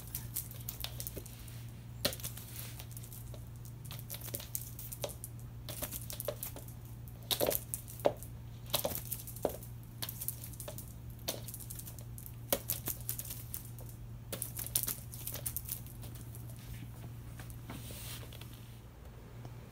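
Scattered taps, clicks and rustles as a cat wand toy is swished and knocked about and a cat pounces after it on a wooden floor, over a steady low hum.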